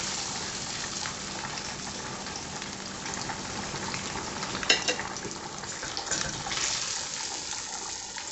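Cornmeal-breaded catfish pieces frying in hot oil in a skillet: a steady, crackling sizzle. A single sharp click comes a little past halfway through.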